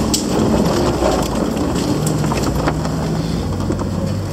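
Jeep Wrangler Unlimited Rubicon crawling over a rough trail, heard from inside the cab: a low, steady engine hum with scattered clicks and knocks.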